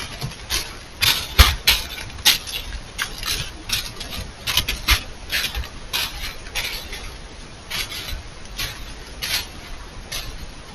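Deer at close range making an irregular run of short scuffing noises, about two a second, thinning out after about eight seconds.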